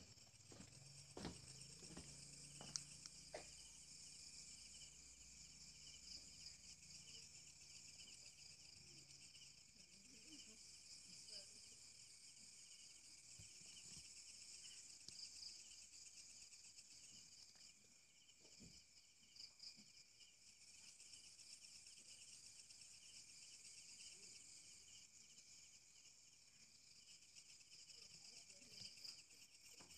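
Faint, steady chorus of crickets and other insects trilling, with a few soft knocks in the first few seconds.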